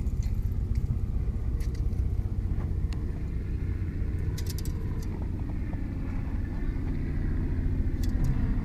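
A steady low rumble, with a few short faint clicks scattered through it.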